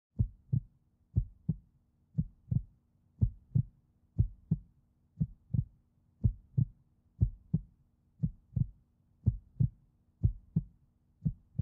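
Heartbeat sound effect: paired low thumps, lub-dub, about one beat a second, twelve beats in all, over a faint steady low hum.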